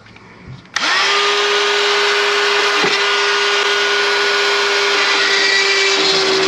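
DeWalt cordless rotary cut-out tool switched on about a second in and running steadily at full speed with a high whine, its bit trimming a small edge off the UTV's body panel so the fender flare will clear.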